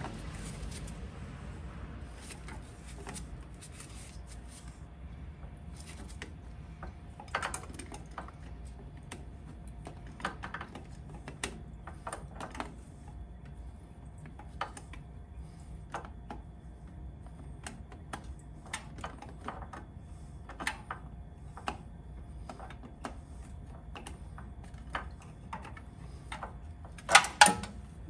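Scattered light metallic clicks and taps from hand work on the underside of a car during an oil change, over a low steady hum. A quick run of louder clinks comes near the end.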